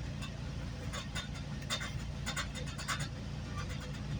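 Interior of a moving GO Transit commuter train: a steady low rumble with scattered light clicks and rattles.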